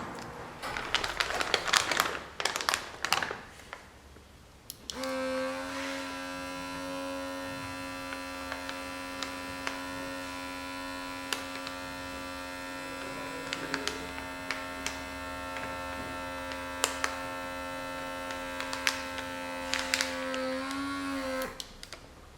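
A few seconds of handling clicks and rustling, then the electric pump of a rechargeable handheld vacuum sealer runs with a steady hum for about sixteen seconds. Its pitch wavers briefly just before it stops near the end, with light clicks of handling along the way.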